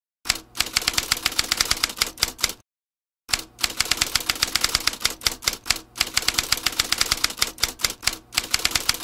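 Typewriter typing sound effect: a rapid run of clacking keystrokes, several a second, that stops for a moment between lines of text and then starts again.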